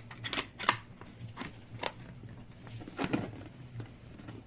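Scattered light clicks and taps of a Fluke 1587 multimeter being handled during a fuse change, over a steady low hum.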